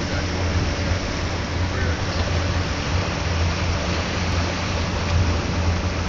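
Motorboat under way: a steady low engine drone under a rushing hiss of water and wind.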